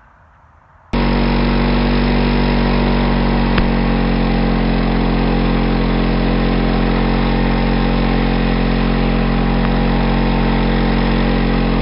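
Husqvarna 450 Rancher 50cc two-stroke chainsaw engine idling steadily. It cuts in abruptly about a second in and holds an even note, with one faint click a few seconds in.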